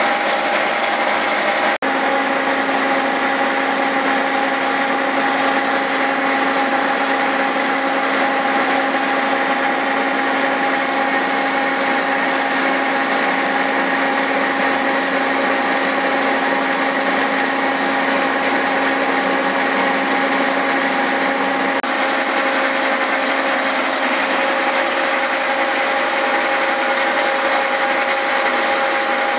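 Cincinnati horizontal milling machine cutting splines into 4340 steel axle shaft stock with a multi-tooth form cutter. A loud, steady machining noise with several steady whining tones; the mix of tones shifts slightly about twenty seconds in.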